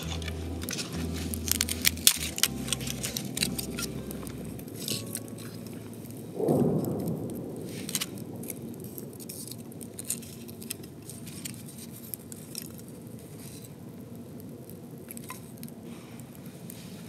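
Split kindling burning in a small wood fire, crackling and popping with many sharp clicks; a short soft whoosh of the flames about six and a half seconds in.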